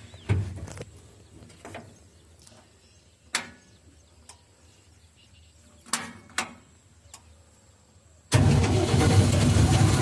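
A few sharp clicks and knocks from the cab controls, then about eight seconds in the combine harvester's diesel engine starts abruptly and runs loudly and steadily.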